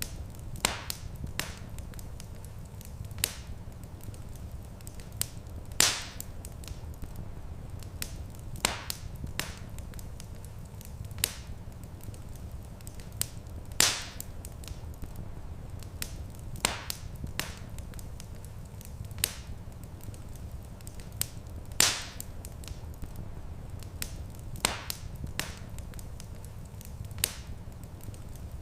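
Wood fire crackling: irregular sharp snaps and pops, a few of them much louder, over a steady low rumble.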